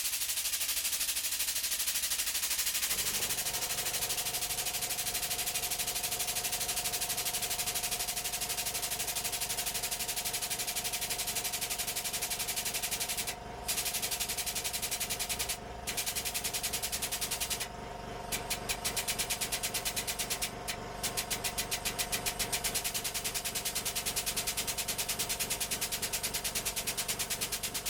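Hydraulic press running: a steady mechanical whine over a hiss from about three seconds in, briefly broken a few times, turning into a fast, even pulsing in the last third.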